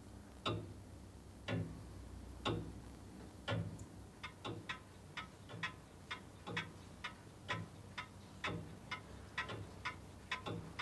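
Mechanical pendulum clocks ticking: a slow, even tick about once a second, joined about four seconds in by faster ticks out of step with it, as several clocks tick together.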